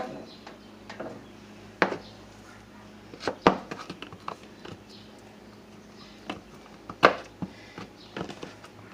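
Scattered clicks and knocks of a dish and microwave being handled, the loudest about two seconds in, about three and a half seconds in and about seven seconds in, over a faint steady hum.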